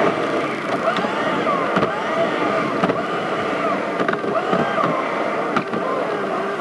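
Music: several overlapping sustained tones that slide up and down in pitch.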